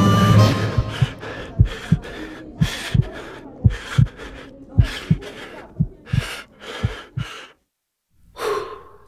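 Sound effect of a fast heartbeat and quick, heavy breathing: deep thumps about every half second, each with a short breath, stopping abruptly, then one last gasp near the end.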